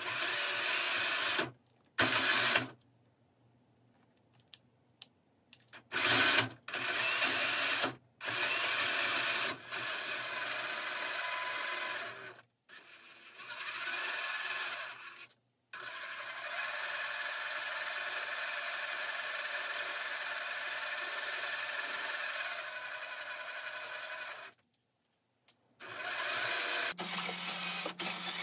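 Electric motor and gear drivetrain of a 1/8-scale Yikong YK4083 Bronco RC crawler whirring in throttle bursts, its wheels spinning freely on a stand. The bursts start and stop abruptly: several short ones first, then a long run of about nine seconds in the second half.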